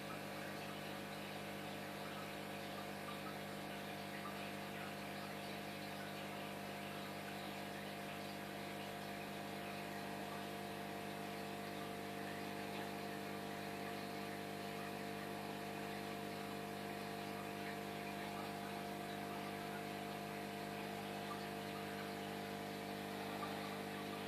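Aquarium air pump and filter humming steadily, several held tones over a soft hiss.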